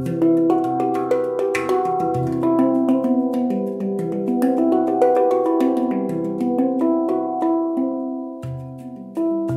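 Handpan tuned to C Aegean (ding C with E, G, B, C, E, F#, G, B) played with the fingers: a flowing run of struck metal notes, each ringing on and overlapping the next, with deep low notes sounding now and then. The playing thins out briefly near the end before a fresh strike.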